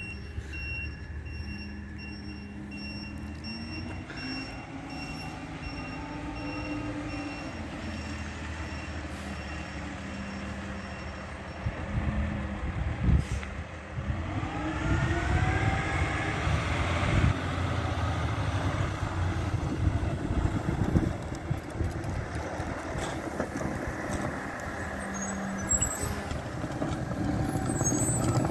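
Diesel engine of a Peterbilt rear-loader recycling truck running as the truck drives up, getting louder from about twelve seconds in. Around fifteen to seventeen seconds in the engine pitch rises and falls, with a few brief sharp sounds along the way.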